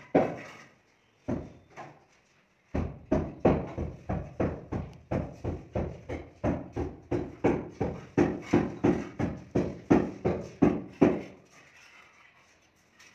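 Hand work against a gypsum plasterboard ceiling: an even run of sharp knocks, about three a second, that starts a few seconds in and stops shortly before the end.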